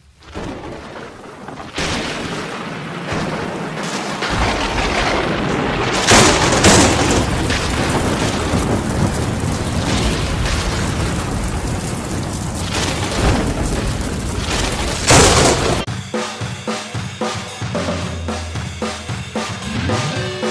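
Intro soundtrack: a loud, dense wash of sound that swells twice, then changes about three-quarters of the way through to music with a steady drum-kit beat.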